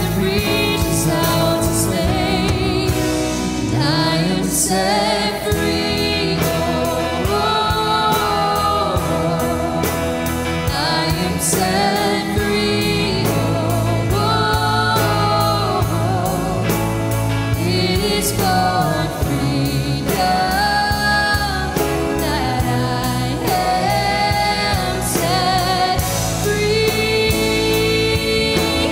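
Live contemporary worship song: a man and a woman singing over acoustic guitar and a steady beat.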